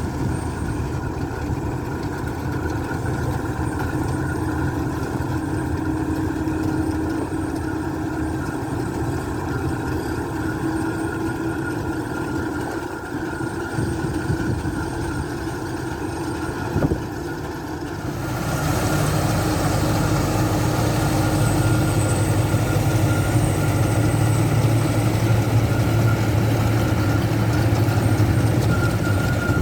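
Farm tractor engine running steadily with harvesting machinery. There is a brief knock about seventeen seconds in, and the sound changes abruptly a second later to a louder, deeper hum.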